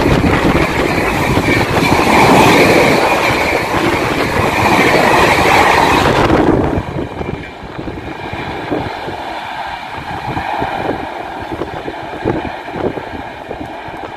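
Indian Railways LHB express coaches passing close by at high speed, a loud steady rush of wheels on rail. It cuts off abruptly about halfway through, leaving a much quieter rumble as another train approaches from a distance.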